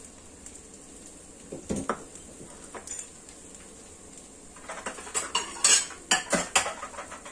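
Dishes and cookware being handled: a dull knock just under two seconds in, then a quick run of clinks and knocks over the last couple of seconds.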